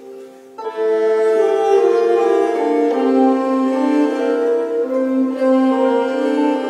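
Medieval ensemble of bowed fiddles and harps performing a fourteenth-century motet. The music nearly drops out at the start and comes back in about half a second in with several sustained lines moving against each other.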